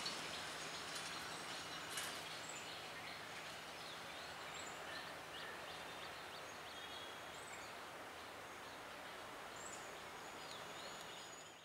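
Faint outdoor ambience with scattered short bird chirps over a low steady hum, cutting off just before the end.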